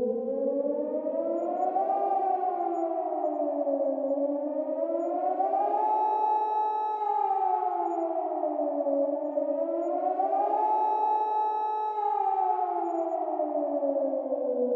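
Civil defense warning siren wailing: its pitch climbs slowly, holds briefly at the top, then falls away, in cycles of about four to five seconds. This is the siren used as a nuclear attack warning.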